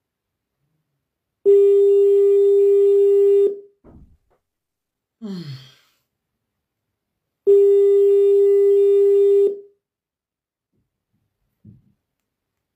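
Telephone ringback tone: a steady pitched tone sounding for about two seconds, twice, about six seconds apart, as an outgoing call rings. A brief falling vocal sound comes between the two tones.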